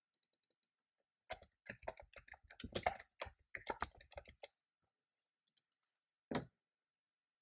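Typing on a computer keyboard: a quick run of keystrokes for about three seconds, then a pause and a single keystroke near the end.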